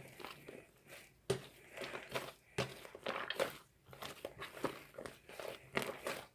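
Slime with shaving foam in it being squeezed and kneaded by hand, giving irregular crackles and sharp popping clicks.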